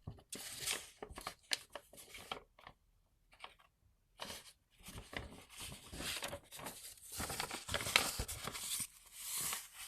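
Paper crinkling and rustling in irregular bursts, sparse at first and busier and louder through the second half.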